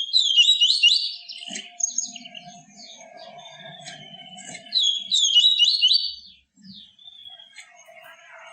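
Papa-capim (yellow-bellied seedeater) singing: two bursts of fast, high twittering song, one at the start and one about five seconds in. A fainter steady lower tone runs between them.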